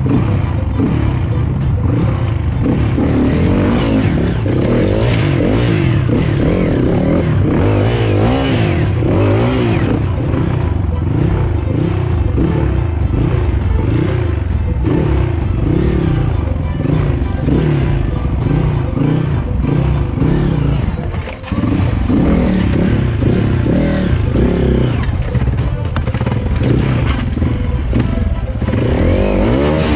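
Dirt bike engine revved hard again and again, its pitch swinging up and down as the bike is forced over rocks, with a brief dip about 21 seconds in.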